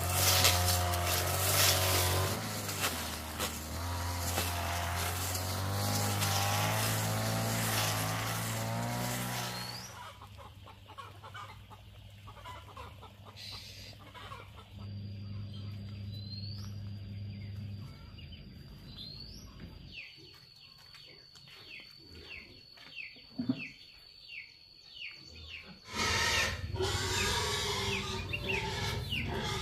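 Petrol string trimmer running under load for about ten seconds as it cuts weeds, over background music. Then a quieter stretch with a thin, steady high insect whine and short chicken clucks, before louder music returns near the end.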